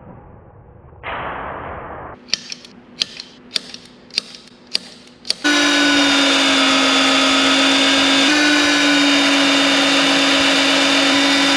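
Vevor BRM-35 magnetic drill press motor coming in suddenly about five seconds in and running with a steady whine while a twist drill bit bores down through stacked steel square tubing. Before it starts there is a short rush of noise and a run of about seven sharp clicks.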